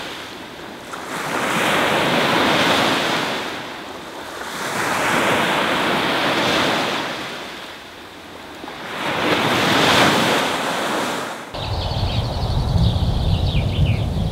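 Sea waves breaking on a sandy shore, three slow swells of surf that rise and fall. Near the end it gives way to a low wind rumble with short high chirps above it.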